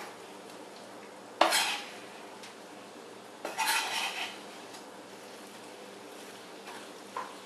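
A chef's knife scrapes diced chayote off a plastic cutting board into a stainless steel frying pan, in two short scraping clatters about two seconds apart, over a faint steady sizzle; near the end a wooden spatula stirs the vegetables in the pan.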